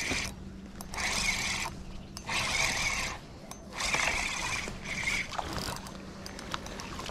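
Fishing reel being cranked in about five spurts of winding, each under a second long, retrieving a small hooked bass. A steady low hum runs underneath.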